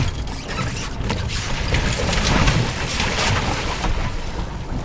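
Wind rumbling on the microphone, with the rustle and flapping of a sailing dinghy's sail as the boom swings across in a jibe.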